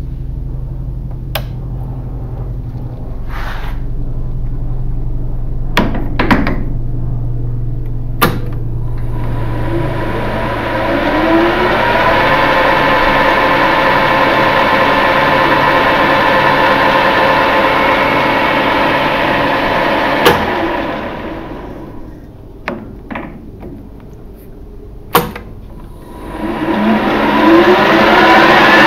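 Boxford metal lathe with sharp clicks from its controls, its spindle and chuck spinning up with a rising whine and running at a steady pitch. About two thirds of the way through it clicks off and winds down, and near the end it spins up again.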